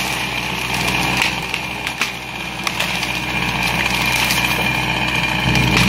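Engine of a log-hauling machine with a wood grapple running steadily, getting louder and heavier about five and a half seconds in, as if taking up load or being revved.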